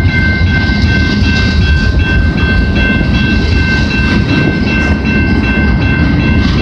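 Freight train cars rolling past: a loud, steady rumble of wheels on rail with clickety-clack, with a steady high-pitched ringing tone running through it.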